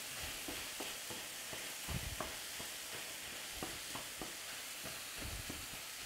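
Bell peppers and tomatoes sizzling in a frying pan, with chicken strips frying in a second pan, as a wooden spatula stirs the vegetables, adding soft scrapes and irregular light knocks against the pan.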